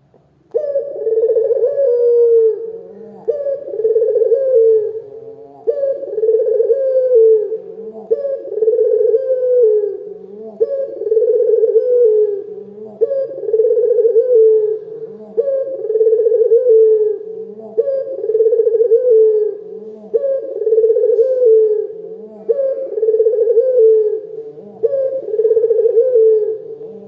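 Barbary dove (ringneck dove) cooing: the same low coo repeated over and over, about once every two and a half seconds, beginning half a second in.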